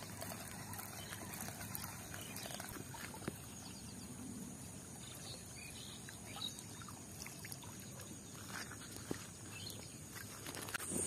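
Faint outdoor ambience with a steady high-pitched hiss and scattered light clicks and taps, as a spinning rod is cast and its reel wound in.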